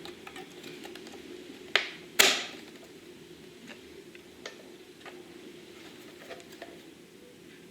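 Small clicks and knocks of plastic being handled on a FrSky Taranis X9 Lite radio transmitter, with two sharper clicks about two seconds in, over a faint steady hum.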